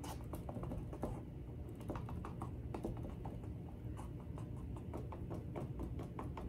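Small irregular clicks and taps from a gloved hand and a plastic cup working thick acrylic paint along the edge of a canvas, over a low steady hum.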